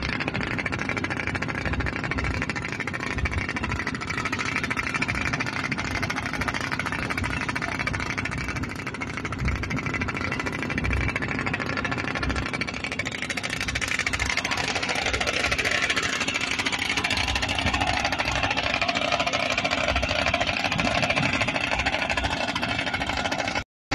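Boat engine running steadily while under way at sea, mixed with wind and water noise. About fourteen seconds in the sound shifts higher and grows a little louder.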